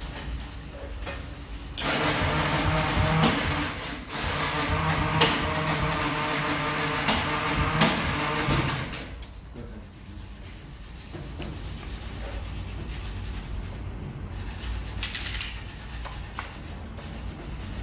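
A loud steady hum with a low even pitch starts about two seconds in, dips briefly, and stops about nine seconds in. Light metallic clicks and rubbing from a T-handle socket wrench turning a motorcycle's front axle follow.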